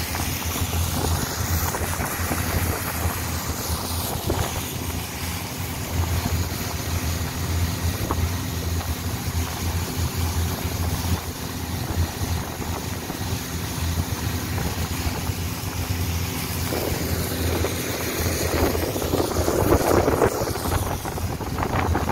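Long-tail boat's engine running steadily under way, a low drone with water rushing along the hull and wind on the microphone. The rushing grows louder for a few seconds near the end.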